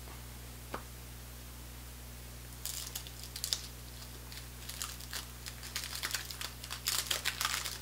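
Paper wrapper of a 1988 Topps Big Baseball Cards pack crinkling and tearing as it is peeled open by hand. It starts a little under a third of the way in and gets louder near the end, after a single light click about a second in.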